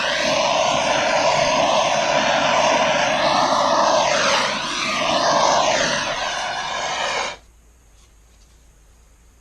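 A handheld electric air blower running at full blast, its rushing sound wavering as it is moved about. It is switched off suddenly about seven seconds in.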